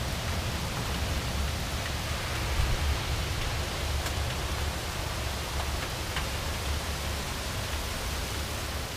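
Heavy thunderstorm rain pouring steadily, a constant hiss with a low rumble underneath and a few faint ticks of drops.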